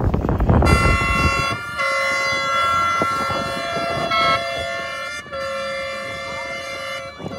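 A loud horn-like pitched tone, held for seconds at a time and stepping to a new pitch a few times, with brief breaks, after a second of rumbling noise.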